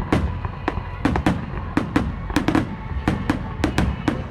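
Fireworks bursting in quick, irregular succession, many sharp bangs a second over a low rumble.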